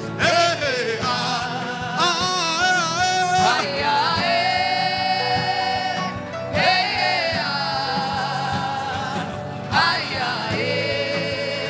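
Worship music: a singer holds long, wavering notes without clear words over a sustained keyboard-like accompaniment.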